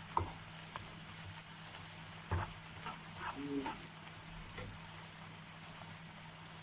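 Onions frying in oil over medium-low heat: a steady, faint sizzle as they are stirred, with a few light knocks.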